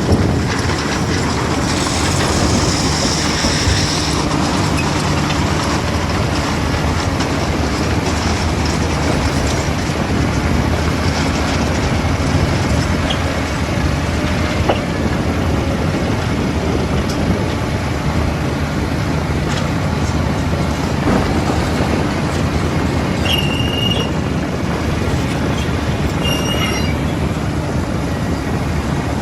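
Heavy diesel machinery running steadily, as from a JCB 3DX backhoe loader at work. Two brief high-pitched squeals come near the end, about three seconds apart.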